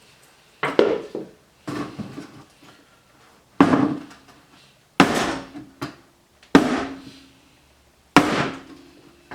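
Six hard knocks on a brake master cylinder, about one every second and a half, each with a short metallic ring. The blows are meant to jar the stuck secondary piston loose from the bore.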